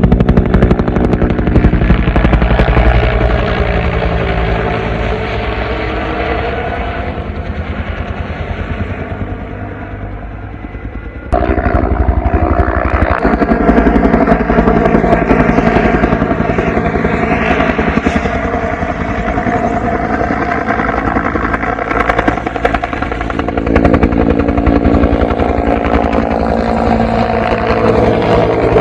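Military helicopter flying, its rotor beat and engine a steady, throbbing drone. It fades gradually over the first ten seconds or so, then about eleven seconds in comes back suddenly at full loudness and stays loud.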